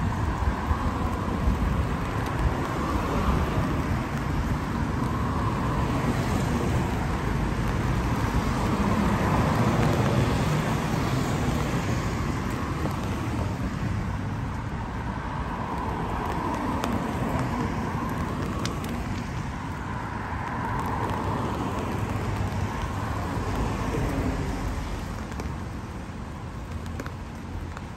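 Road traffic on a wet street in the rain: tyre hiss and engine noise from passing cars, swelling and fading twice, over a steady wash of rain.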